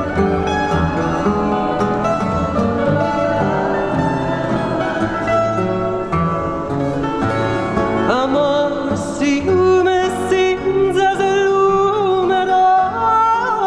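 Fado accompaniment: a Portuguese guitar and a classical guitar (viola) plucking, over a bass. About eight seconds in, a male voice comes in singing over them with wide vibrato.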